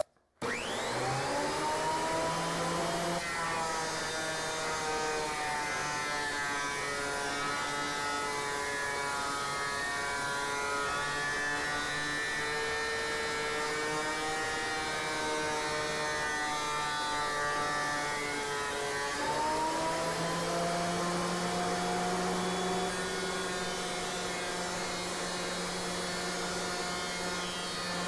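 Delta benchtop thickness planer switched on, its motor and cutterhead spinning up to a steady high whine. From about three seconds in, the pitch drops while a board feeds through and is cut. At about nineteen seconds the whine rises again as the board clears the knives and the planer runs free.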